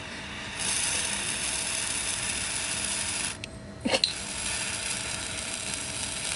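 Butane torch flame hissing steadily. A little past three seconds it stops briefly, a click sounds, and the hiss starts again.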